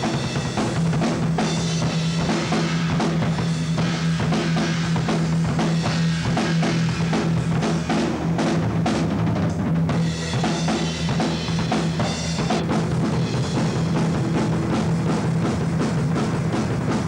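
Metal band playing hard: a drum kit with dense bass drum and snare hits over a steady, held low tone. The music starts suddenly.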